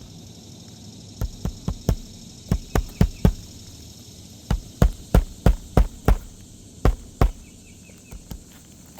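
Hammer driving roofing nails into a shingle: about seventeen sharp strikes in four quick bursts.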